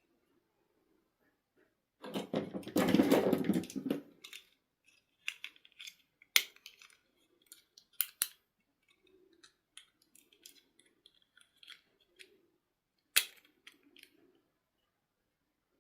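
Hands handling a toy and its packaging: a loud rustle lasting about two seconds, then scattered light clicks and snips, with two sharper snaps.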